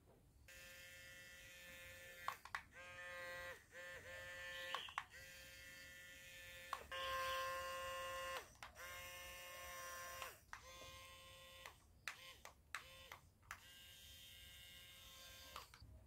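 Small DC motor in a homemade toy air conditioner running with a steady high whine. It cuts out and restarts several times, with short clicks at the breaks.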